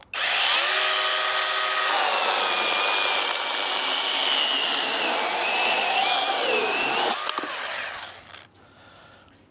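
Cordless battery mini chainsaw starts with a steady motor whine, then its chain cuts through a log, the pitch wavering under load. It winds down about eight seconds in.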